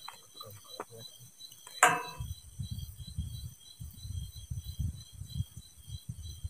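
Fishing rod being cast over the canal: one sudden sharp swishing sound about two seconds in, followed by a run of low, muffled thumps.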